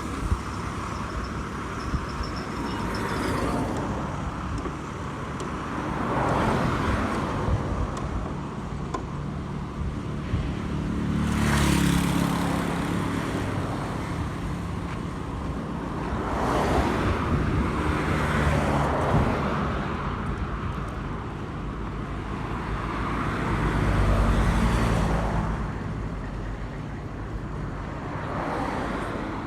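Road traffic: motor vehicles passing one after another, several swelling up and fading away over a steady low rumble.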